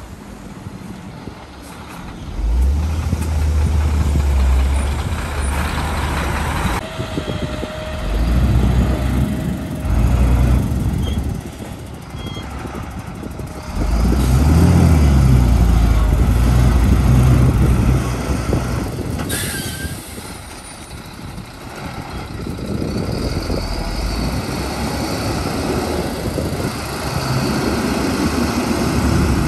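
Heavy diesel engines of Shacman dump trucks running and pulling under load, the engine sound swelling and easing several times as the trucks move. A short hiss comes about two-thirds of the way through.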